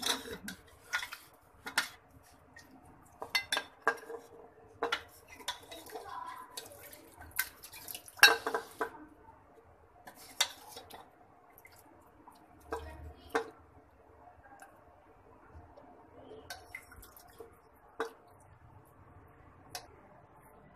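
A metal ladle knocking and scraping against an aluminium pressure-cooker pot as mutton-and-potato curry is ladled out into a serving dish. The clinks come irregularly, thick through the first half and fewer after about ten seconds.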